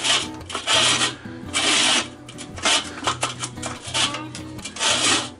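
Metal blades of a Weber kettle grill's replacement one-touch cleaning system swept back and forth across the bottom of the bowl, scraping in repeated strokes roughly once a second. The newly installed sweep mechanism is moving freely again as it is tested.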